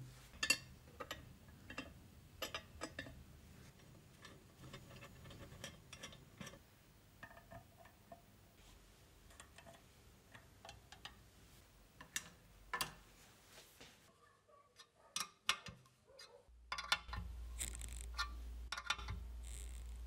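Scattered light metallic clicks and ticks as steel spokes are handled and fitted into a motorcycle wheel's hub and rim, with a steady low hum joining in for the last few seconds.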